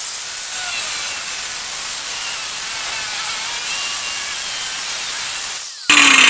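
Angle grinder with a cut-off disc cutting through the rusted steel rocker panel of a car, a steady hissing grind. About a second before the end the sound jumps louder and the motor's pitch starts falling as the grinder winds down.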